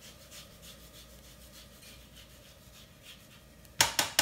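An orange being zested on a microplane grater: quiet, even rasping strokes, about three a second. Near the end, a couple of loud, sharp knocks on the cutting board.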